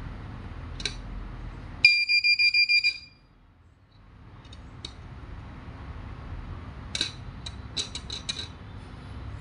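The buzzer of a homemade electronic alarm circuit sounding a rapid high-pitched beeping, about seven beeps a second, for about a second; it is the loudest sound here. A handful of sharp clicks follow a few seconds later.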